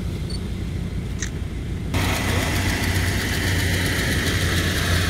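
Jeep engine running steadily at low revs, a low hum. About two seconds in, a steady hiss joins it.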